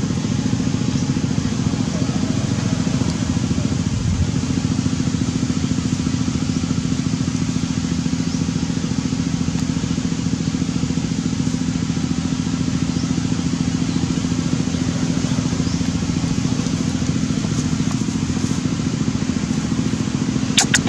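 Steady, unchanging engine hum, like an idling motor, with a sharp click just before the end.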